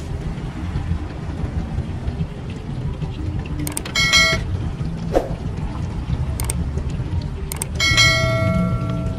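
Subscribe-button sound effect: clicks and a bright bell chime about four seconds in, then more clicks and a second chime near the end that rings on longer. A steady low rumble runs underneath.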